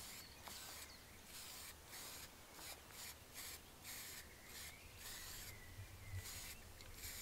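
Aerosol spray-paint can hissing in short, light puffs, about two a second, as brown paint is misted onto a flocked decoy head.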